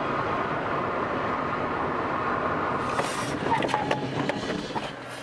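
Steady road and engine noise of a car driving, heard from inside the cabin through a dash camera. A few short clicks and brief tones come in about three seconds in.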